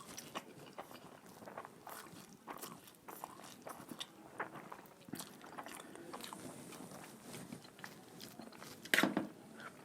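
A person eating up close, with wet chewing, slurping and crunching of cheesy ramen and fried chicken in irregular small clicks, and a louder burst about nine seconds in.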